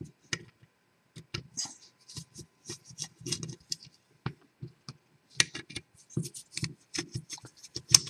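Ross 100 series six-lever safe lock being taken apart by hand with tools: irregular light metal clicks, taps and rattles.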